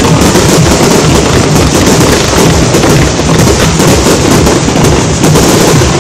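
Fireworks display: aerial shells bursting in a dense, continuous barrage, loud and without a break.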